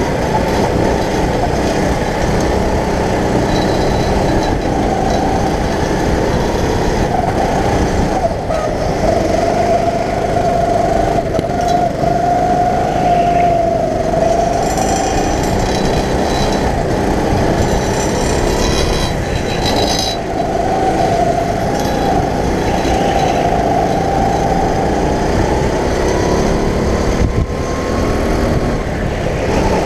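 Go-kart's small engine running under throttle, heard from on board the kart, its pitch rising and falling as it is driven round the track.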